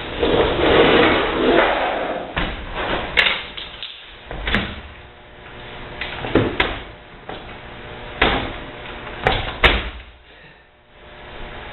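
Scraping, knocking and clattering of dishwasher parts being pulled and pried apart: a rough scraping stretch at first, then sharp knocks and clacks every second or two.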